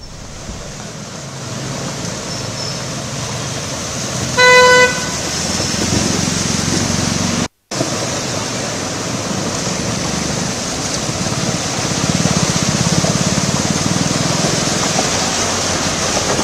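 Street sound of a flooded road: a steady rush of water and traffic noise. A single short car-horn honk sounds about four and a half seconds in and is the loudest thing heard. The sound cuts out briefly just after the halfway point.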